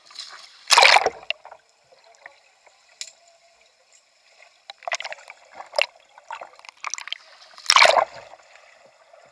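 Water splashing and rushing over a kayak's deck as it capsizes, loud about a second in, then scattered muffled splashes and bubbling while it is upside down, and a second loud rush of water near the end as it is rolled back up.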